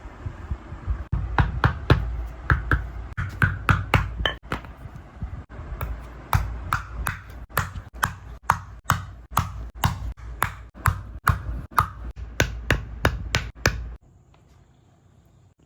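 Hammer tapping steadily at about three strikes a second, each strike with a short metallic ring, as in hammering down leather on a shoe; the tapping stops suddenly near the end.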